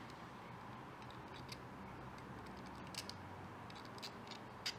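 A few faint, sharp plastic clicks and ticks as a small plastic light separator is pushed into a clear plastic camera case, over a low steady hiss.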